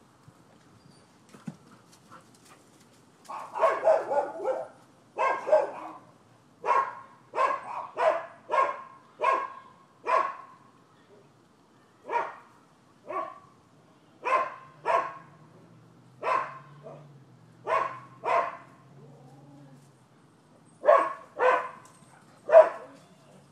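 Dog barking over and over, starting about three seconds in, with sharp single barks and short quick runs of barks broken by brief pauses.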